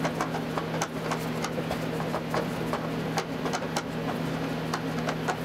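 Long screwdriver turning a 1.5-inch screw through a wooden router mount into a cross dowel, giving irregular small clicks and creaks. A steady low hum runs underneath.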